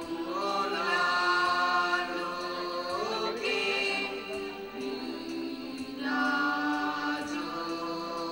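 A group of voices singing a slow song together, with long held notes and a few slides from one pitch to the next.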